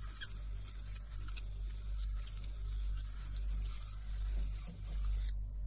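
Fingertips and nails tapping and scratching on two opened aluminium drink cans close to the microphone: light scattered clicks over a scratchy hiss that stop about five seconds in. A steady low electrical hum runs underneath.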